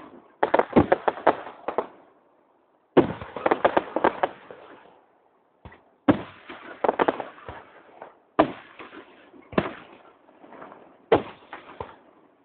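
Fireworks going off close by: salvos of sharp bangs and crackles that come in clusters, with short gaps between them.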